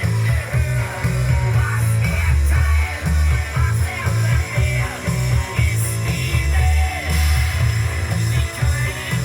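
Music with guitar and singing over a strong, pulsing bass, played from a record on a Tesla NZC 431 stereo turntable.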